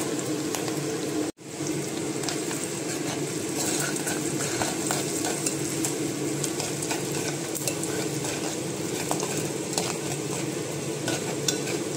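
Curry leaves, green chillies, ginger and mustard seeds sizzling and crackling in hot sesame oil in a clay pot, stirred with a metal spoon. Under it runs a steady hum from a kitchen chimney hood left switched on.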